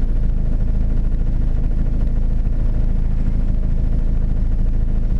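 Škoda Felicia engine idling steadily, heard from inside the car's cabin.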